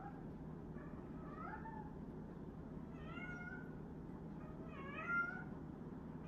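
A house cat meowing repeatedly: a string of short rising-and-falling meows, the loudest about five seconds in.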